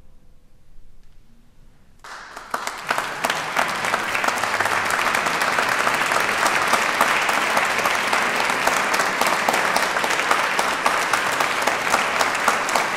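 Audience applause that starts suddenly about two seconds in, after a short hush as the final chord dies away, and then goes on steadily as dense clapping.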